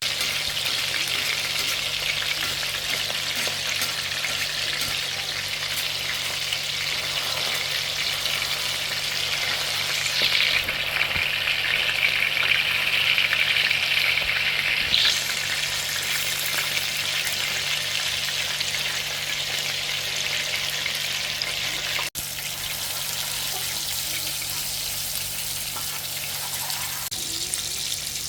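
Chapli kababs shallow-frying in hot oil, with a steady sizzle. The sizzle grows louder for a few seconds about a third of the way in, then settles again.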